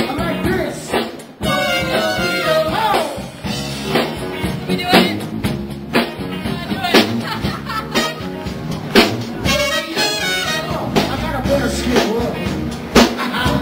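Live band playing dance music with a steady drum beat, mixed with the chatter of a party crowd.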